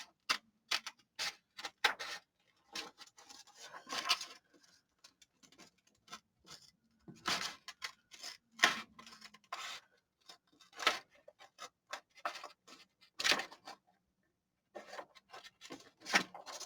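Paper and craft tools being handled on a desk: irregular light taps, clicks and short rubbing scrapes of paper, with a brief pause near the end.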